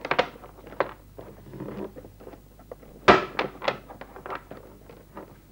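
Mahjong tiles clicking and clacking against each other and the tabletop as they are handled, with a sharper knock about three seconds in.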